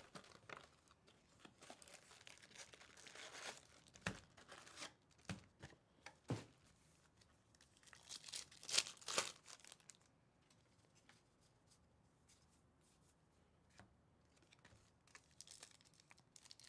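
A trading-card pack wrapper crinkling and being torn open by hand, the loudest tearing about eight to nine seconds in. There are a couple of soft knocks a few seconds earlier.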